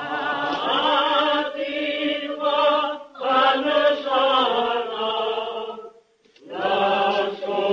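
Voices chanting a slow, sung prayer in long held notes, in phrases broken by short pauses about three and six seconds in.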